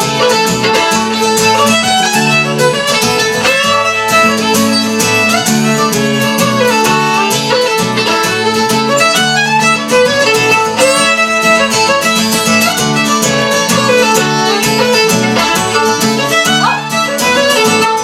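Fiddle and guitar playing an instrumental traditional tune together, the fiddle carrying a fast melody over steady rhythmic guitar accompaniment.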